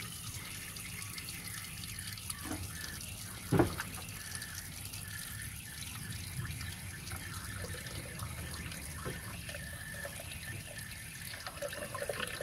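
Engine coolant draining from a car's radiator pipe, a steady stream splashing into a container below. A single brief thump about three and a half seconds in.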